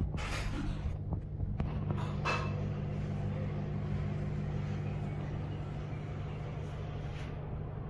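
Samsung 13 kg top-load washing machine in its spin cycle, the newly fitted drive motor spinning the drum with a steady hum. The motor is turning properly again after the jammed original behind the 3E/3C error was replaced.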